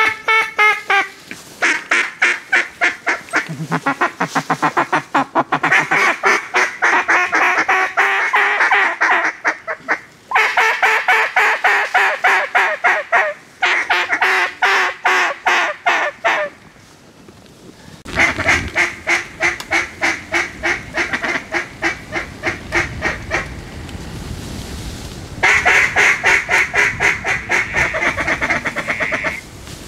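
Hand-blown duck calls sounding long runs of fast, repeated quacks, broken by short pauses. They are calling to ducks flying overhead to draw them in.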